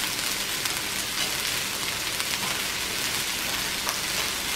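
Meat, seafood and vegetables sizzling in butter on a Lao BBQ griddle: a steady crackling hiss with a few small pops.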